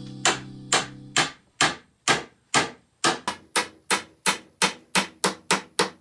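A hammer striking repeatedly in woodworking, about twenty sharp blows. The blows speed up from about two a second to about five a second.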